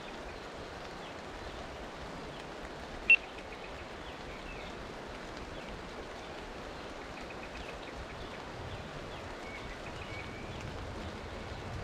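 Steady rain falling on a river, an even hiss. About three seconds in comes one short, sharp high-pitched chirp, and faint high chirps, likely birds, come and go in the latter half.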